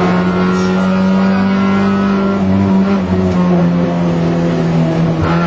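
Rally car's engine heard from inside the cabin on a special stage, running hard at a near-constant pitch, with a short dip about halfway through and another near the end.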